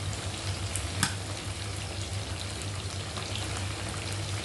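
Chicken pieces deep-frying in hot sunflower oil in a pan, the oil sizzling steadily with scattered crackles, one sharper click about a second in, over a low steady hum.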